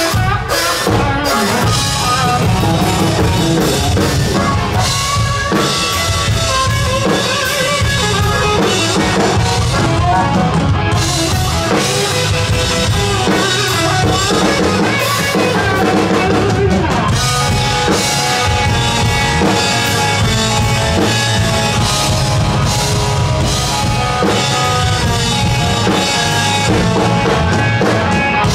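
Live country-rock band playing an instrumental break: electric guitar and bass over a steady drum-kit beat, with no singing.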